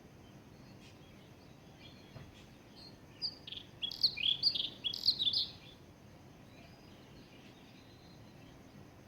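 A songbird sings one short phrase of quick, sliding whistled notes, mostly falling in pitch, starting about three seconds in and ending about two and a half seconds later, over a faint steady background hiss.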